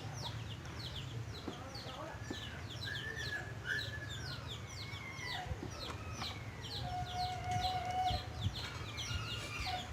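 Chickens calling in a yard: a steady run of short, high, falling peeps, several a second, with a few longer, lower calls between them.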